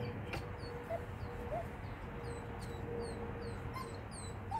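Small birds chirping in short, falling chirps, several a second, over a faint steady hum, with a few soft higher squeaks in between.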